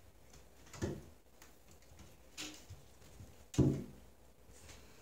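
A few hollow thumps on a bathtub as a kitten pounces and lands in the empty tub. The loudest comes about three and a half seconds in.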